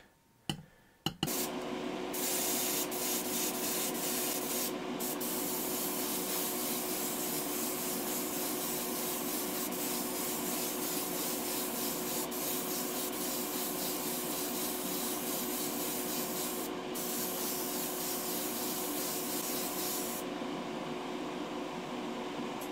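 A small spray gun hissing steadily as it sprays paint onto the model body, with two brief breaks and stopping near the end. Under it runs the steady hum of the spray booth's extraction fan.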